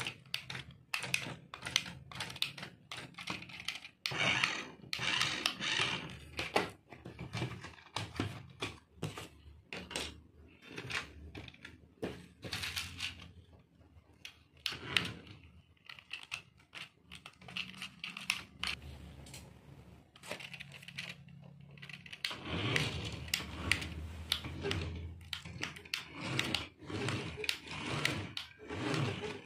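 Battery-powered toy remote-control Batmobile running in bursts on a tabletop: its small electric motor and plastic gears whir and clatter, with many sharp clicks and knocks from the plastic body and wheels. The densest rattling comes in stretches, the longest over the last several seconds.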